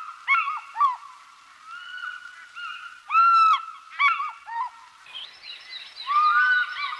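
Birds calling: a run of loud, short calls that each rise and fall in pitch, then from about five seconds in a flock calling over one another.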